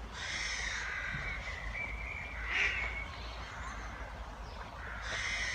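Ducks quacking: one stretch of calls in the first three seconds, and another near the end.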